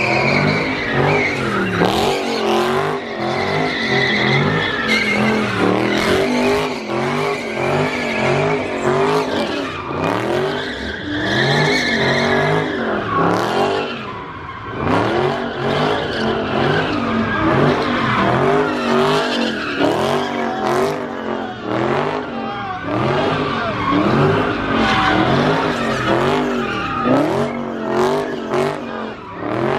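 Dodge Charger's V8 revving up and down again and again while the car spins donuts, its rear tires squealing and skidding on the pavement.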